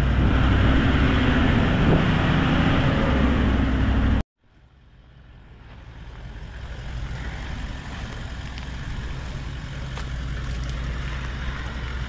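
A four-wheel-drive vehicle's engine running steadily with road and tyre noise. It cuts off abruptly a little over four seconds in, then fades back in more quietly.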